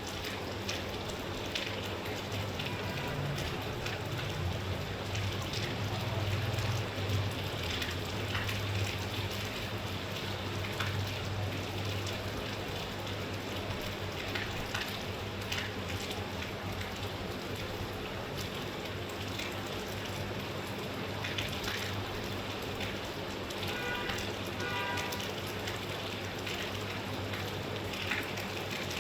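Steady rain falling, an even hiss dotted with individual drop ticks, over a low steady hum.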